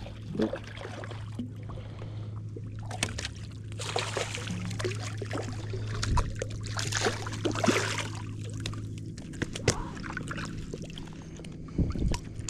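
Water splashing and slapping as a hooked trout thrashes at the surface beside the boat while it is being landed, over a steady low hum.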